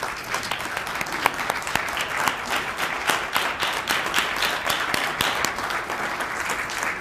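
Audience applauding: many people clapping steadily at once, with a few sharp individual claps standing out.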